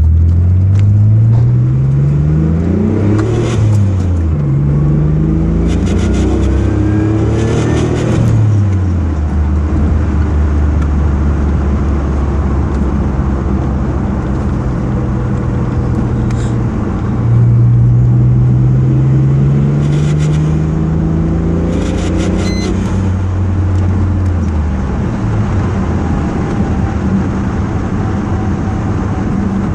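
Mitsubishi 3000GT's V6 engine pulling through the gears: the pitch rises under acceleration and drops back at each shift, holds steady for a stretch, then climbs again and falls off. Clusters of sharp clicks come a few seconds in, again around the middle of the first climb, and later during the second climb; these are likely the weird noise the owner is recording.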